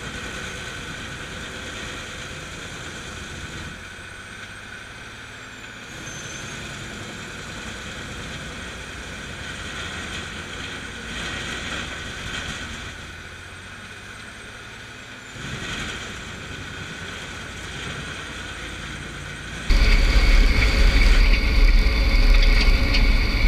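Bandit Beast 3680 horizontal grinder running steadily as it chips firewood, its note slowly swelling and easing. About twenty seconds in, the sound turns suddenly much louder and heavier, heard right at the grinder's infeed.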